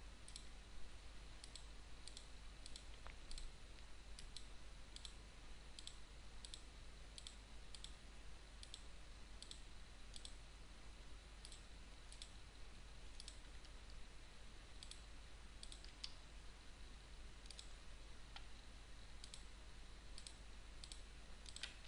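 A computer mouse button clicking faintly and steadily, about two clicks a second, as spline vertices are placed one after another.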